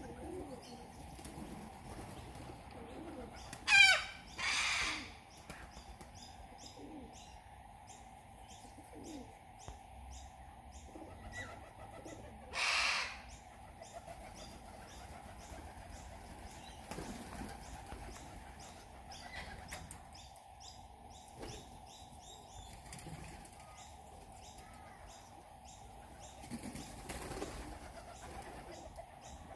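A flock of corellas flapping and calling on power lines. There are two loud harsh screeches, one falling in pitch about four seconds in and another about thirteen seconds in, with softer calls and wing flaps between.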